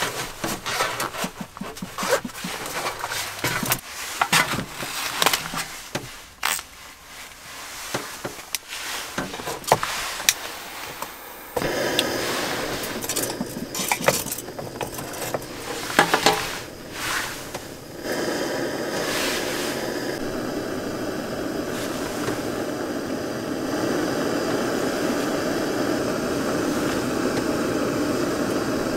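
Gear being handled with clicks and knocks, then a small portable gas canister heater: gas starts hissing about twelve seconds in, a few sharp igniter clicks follow, and about eighteen seconds in the burner catches and runs with a steady rushing sound.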